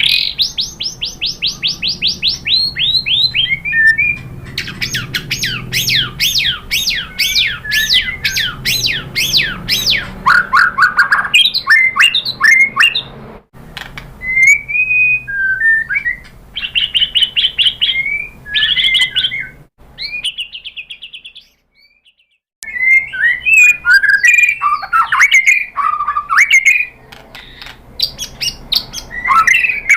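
White-rumped shama singing loudly: fast runs of repeated sweeping whistled notes, then varied chattering and whistled phrases, broken by a pause of about two seconds past the middle.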